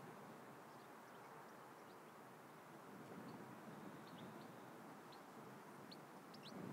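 Near silence: faint rural background with a few brief, high bird chirps, more of them near the end.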